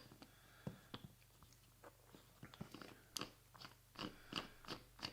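Faint, irregular clicks and taps of small parts being handled and fitted back into the housing of a right-angle drill attachment, coming more often in the second half.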